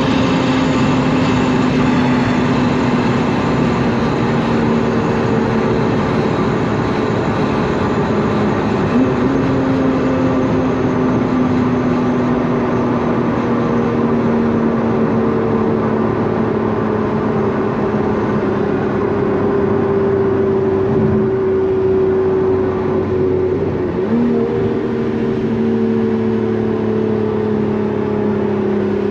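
Lotus Emira's supercharged 3.5-litre V6 heard from inside the cabin as the car slows from high speed. The engine note falls steadily, and two downshifts, fifth to fourth about a third of the way in and fourth to third about three-quarters through, each lift the revs, over steady road and wind noise.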